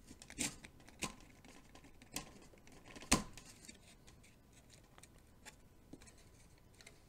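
Light clicks and knocks of 3D-printed plastic tail parts being handled and pushed together as the horizontal stabilizer is test-fitted onto the fin, a handful of separate taps with the sharpest about three seconds in.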